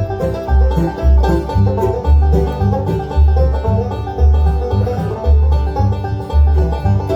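Bluegrass band playing an instrumental passage: banjo, mandolin, guitar and bass, with a steady bass beat.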